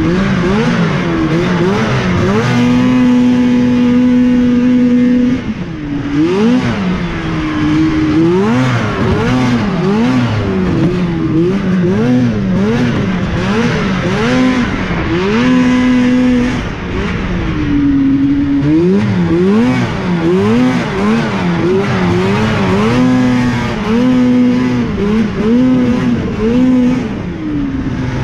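Yamaha two-stroke snowmobile engine, heard close from the rider's seat, revving hard and backing off again and again as it is throttled through a tight snowcross course. The pitch rises and falls every second or so, and is held high for a couple of seconds at a stretch, about three times.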